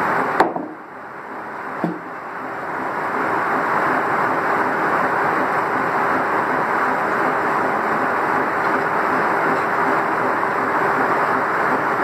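Steam sawmill machinery running steadily with a constant mechanical din and faint hum. A sharp knock comes about half a second in and a smaller one near two seconds, while a timber is handled on the saw carriage.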